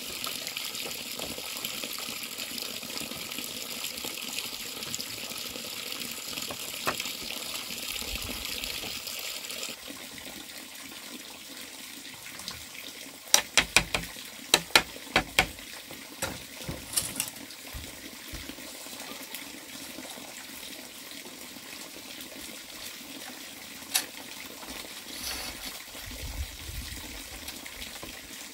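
Steady rush of flowing water that drops quieter about a third of the way in. Around the middle come a quick series of about eight sharp knocks, with a few single ones later.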